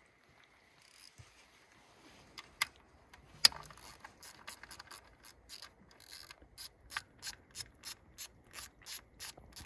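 A socket ratchet clicking as it is worked in short strokes: a few scattered clicks at first, then a steady run of about three clicks a second in the second half.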